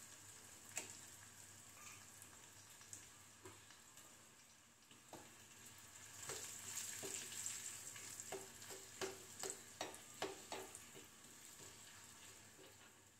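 A coconut-oil tadka of mustard seeds, garlic, curry leaves and chillies sizzling faintly in a small pan off the flame. From about halfway through, a metal spoon stirs it, clinking and scraping against the pan many times.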